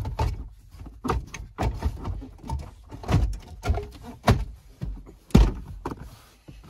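Plastic centre-stack trim bezel of a Dodge Journey dashboard being pressed back into place by hand: a string of sharp knocks and clicks as its retaining clips snap in, the loudest a little over five seconds in.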